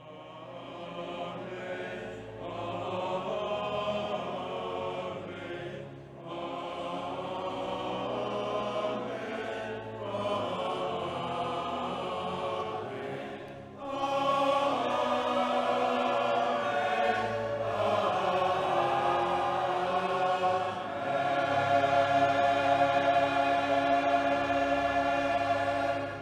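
Choir singing a slow hymn in phrases, fading in at the start, growing louder about 14 seconds in, and fading out at the end.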